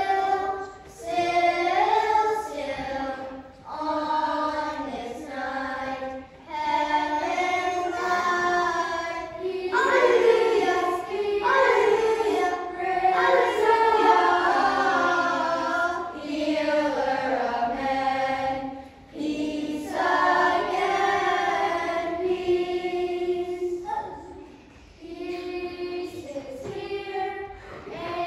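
A choir of children and teenagers singing together, phrase by phrase with brief breaks for breath between phrases.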